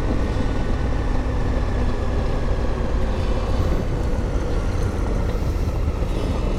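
Adventure motorcycle riding at speed: the engine runs steadily under a constant rush of wind and tyre noise as the road turns from pavement to loose gravel.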